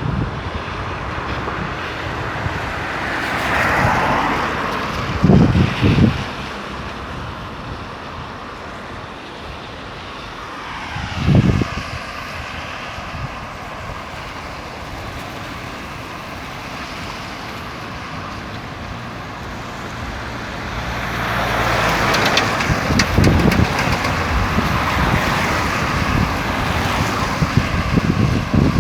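Road traffic: cars passing one after another on a busy highway. There is a swell of tyre and engine noise about four seconds in and a longer one from about twenty-one seconds, with a few short low thumps in between.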